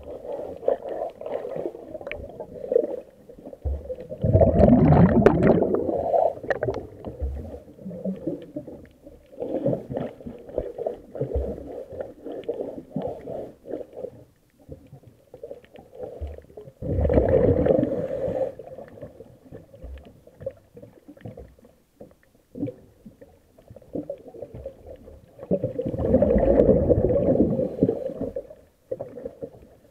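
A diver's scuba regulator heard underwater: three long bursts of exhaled bubbles, roughly twelve seconds apart, each lasting two to three seconds, with low gurgling and water noise between breaths.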